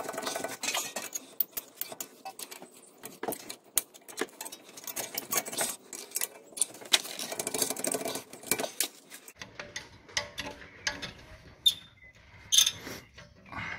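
Rear brake caliper being squeezed by hand and levered off the disc with a pry bar: an irregular run of metal scrapes, clicks and rattles. The clicks come thick for most of the time and turn fewer but sharper near the end.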